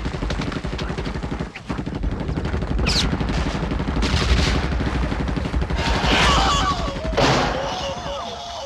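Sustained rapid machine-gun fire, with louder bursts about six and seven seconds in.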